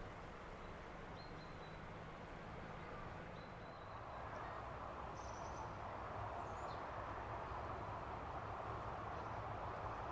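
Steel haul cable of a funicular running over the track's guide pulleys, a steady whirring hiss that grows louder about four seconds in as the line gets moving. A few short bird chirps sound over it.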